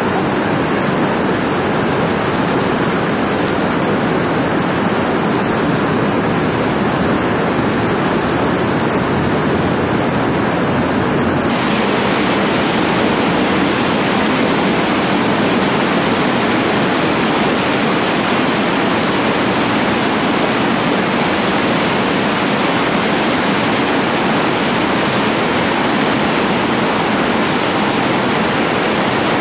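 Steady rushing of whitewater river rapids recorded close by. The sound grows brighter in the upper range about eleven seconds in.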